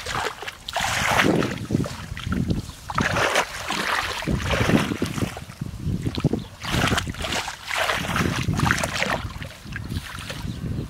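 Shallow water splashing and sloshing in irregular bursts, about one or two a second.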